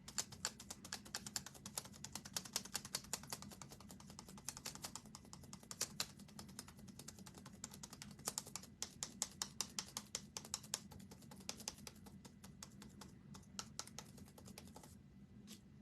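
Typing on a computer keyboard: quick, irregular key clicks that stop about fifteen seconds in.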